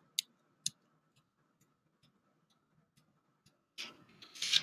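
Metronome clicks from drill-animation software, about two a second, one per count of the marching drill as it plays through the move; the first two are louder, the rest faint. A short rush of noise near the end.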